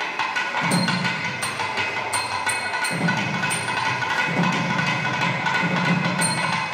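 Thavil drumming in a fast rhythm: sharp cracking strokes, with runs of deeper strokes coming in and out, over a steady drone.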